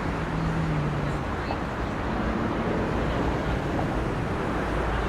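Steady outdoor background noise with a heavy low rumble, and a short steady low hum about a second long near the start.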